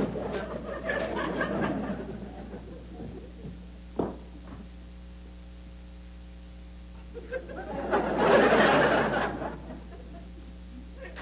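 Studio audience laughing, dying away over the first couple of seconds, then a second wave of laughter about eight seconds in. A single knock sounds about four seconds in.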